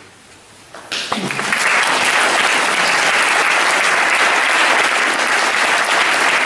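Audience applause: after about a second of near quiet, clapping breaks out all at once and carries on steadily and densely.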